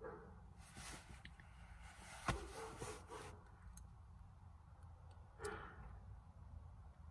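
A woman breathing out heavily and sighing as she tries to calm herself during an anxiety attack, in two long breaths near the start and a shorter one near the end. A sharp click about two seconds in is the loudest sound, over a low steady rumble.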